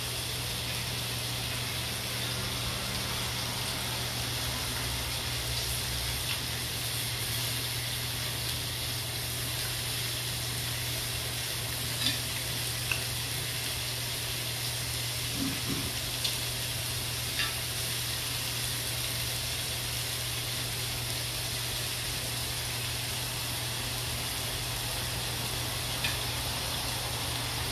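Chicken skewers sizzling steadily on a grill pan, over a steady low hum. A few light clicks of utensils against the pan come around the middle and near the end.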